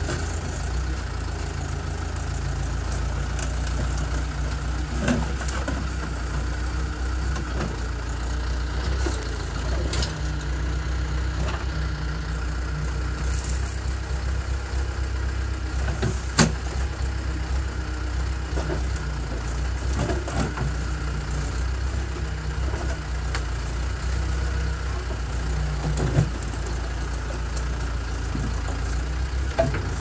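Backhoe's diesel engine running steadily while the bucket digs, with occasional short knocks and clanks of the bucket on concrete and rubble, the sharpest about 16 seconds in.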